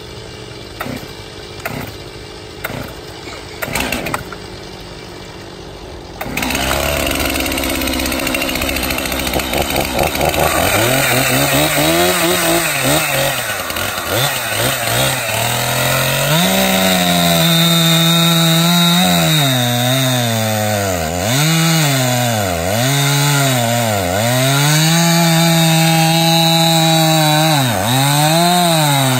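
Stihl MS 261 C-M two-stroke chainsaw with an 18-inch bar, idling at first with a few knocks. About six seconds in it gets louder, and from about ten seconds it runs at full throttle bucking a large pine log, its engine pitch dipping under the load of the cut and rising again several times.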